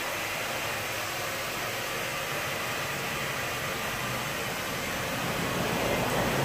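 Steady, even background hiss, joined by a low steady hum about five seconds in.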